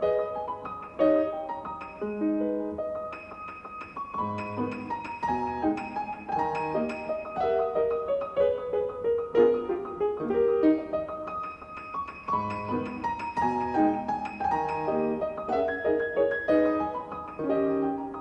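Solo piano music, a melody over chords with the notes struck one after another.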